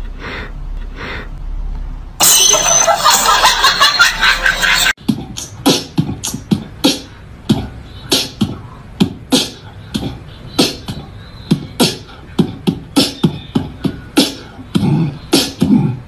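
A rhythmic percussive beat of sharp hits, roughly two a second, after a few seconds of loud, dense noise near the start.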